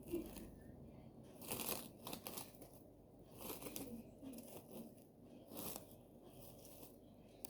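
Close-miked eating sounds of oat fufu with okra soup: several brief, soft, wet bursts of chewing and tearing.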